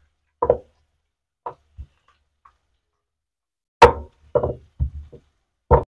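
Wooden rolling pin knocking against a round wooden board as folded parotta dough is rolled out: a few light knocks, then a loud one about four seconds in, followed by several quicker knocks.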